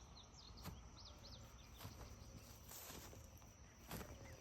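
Faint rural ambience: small birds giving short repeated chirps over a thin steady high tone, with a few light clicks.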